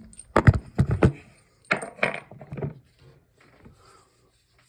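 Handling noise as the camera is set down: a quick run of sharp knocks and clatters, a few more about two seconds in, then it goes quiet.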